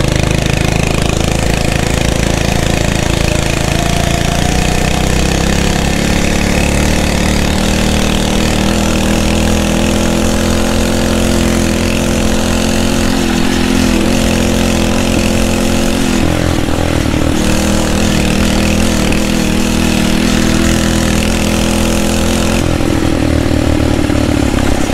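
Phatmoto Rover motorized bicycle's 79cc four-stroke engine running with its governor removed while being ridden. Its pitch climbs over the first few seconds, then drops and rises again a few times as the throttle changes.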